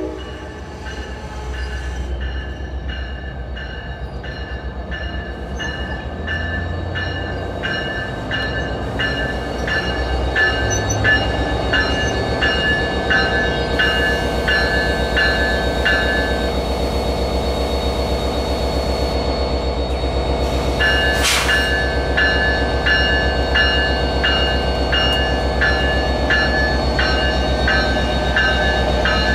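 NJ Transit train with the locomotive's bell ringing about twice a second over the steady low rumble of its engine. Midway the bell stops for a few seconds, then comes a short burst of air hiss and the bell resumes.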